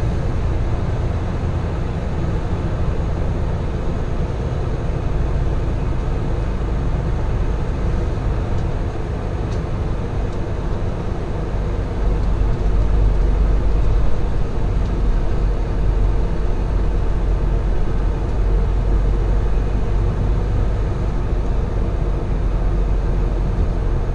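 Diesel engine of a 2018 Freightliner Cascadia semi truck heard from inside the cab, a steady low rumble as the truck rolls slowly at low speed; it gets a little louder about halfway through.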